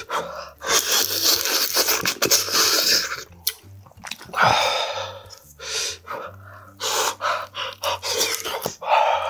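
Close-miked eating sounds: slurping and chewing spicy seafood ramen and shellfish, with sharp breathy gasps from the heat of the broth.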